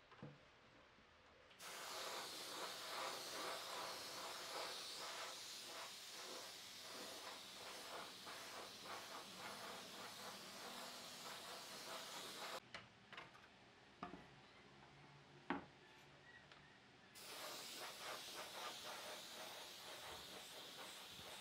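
Air-fed spray gun hissing as it sprays a finish coat onto wood. One long spray starts a couple of seconds in, stops for a few seconds with a few light clicks, then starts again.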